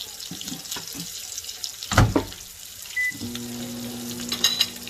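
Pork chop frying in butter and olive oil in a pan, sizzling with a steady crackle of small pops. A loud knock comes about two seconds in, and a short beep about three seconds in is followed by a steady low hum.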